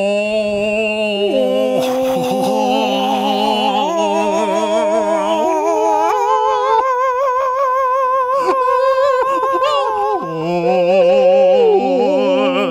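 Two men singing long held notes together, unaccompanied, with a wavering vibrato. They step from note to note every few seconds.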